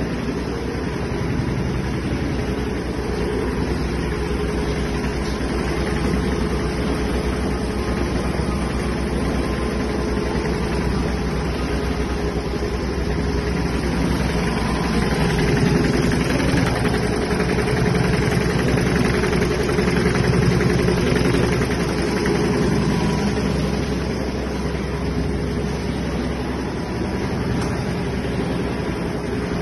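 Mattress-making machinery running steadily: a continuous mechanical hum with a faint steady whine over it.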